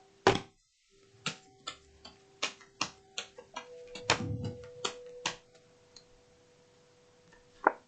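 A series of irregular sharp clicks and taps, the loudest just after the start, over a faint steady tone.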